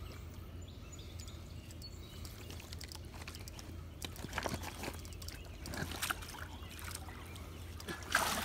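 Water sloshing and splashing as a hooked flathead catfish thrashes at the surface close in, the splashes getting louder from about halfway through, over a steady low hum.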